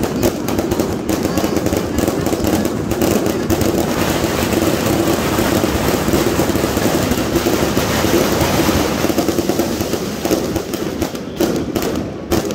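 A long string of firecrackers going off in rapid, continuous crackling, which stops near the end.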